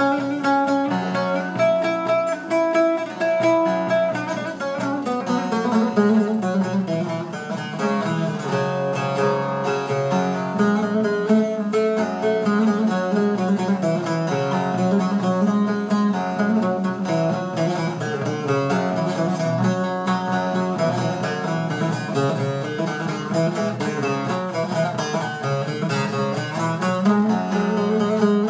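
Instrumental music played on plucked string instruments, a melody moving over sustained lower notes, with no singing.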